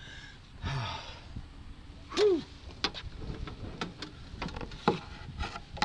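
Scattered clicks and knocks of the driver moving and climbing out of a stopped gravity car, with a short rising-and-falling tone about two seconds in, the loudest sound.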